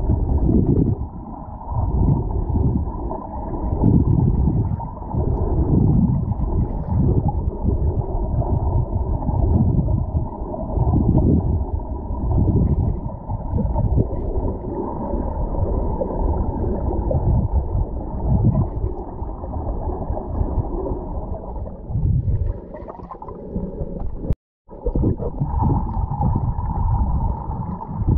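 Muffled underwater rumble and gurgling of moving water on a submerged camera, swelling and fading every second or two. It cuts out for a moment near the end.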